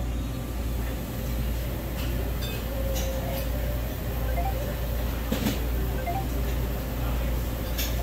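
Brazing torch flame burning steadily with a low rumbling hiss while it heats a copper refrigeration tube joint, with a few faint clicks.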